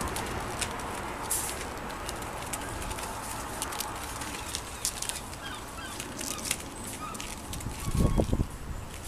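Irish Terrier puppies giving small squeaky yelps and whines, among scattered clicks. A few low thumps come near the end.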